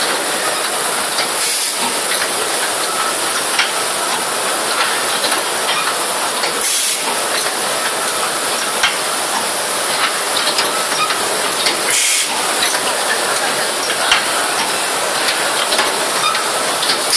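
Zanetti automatic ball-valve test and assembly machine running: a steady loud hiss, with a short sharper blast of air venting about every five seconds, three times, and scattered light clicks from its pneumatic parts.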